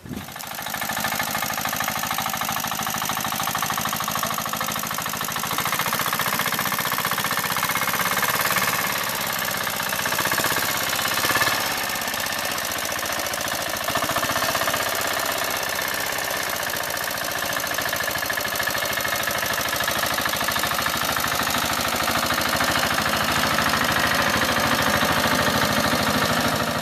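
Engine of a BUV, a homemade basic utility vehicle, running steadily as the vehicle is driven off carrying a load of sand.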